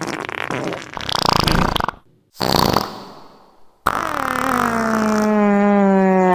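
Fart sound effects from the iFart app, three in a row: a raspy one lasting about two seconds, a shorter one after a brief pause, then a long, steady buzzing fart with one clear pitch that sinks slightly before it cuts off sharply.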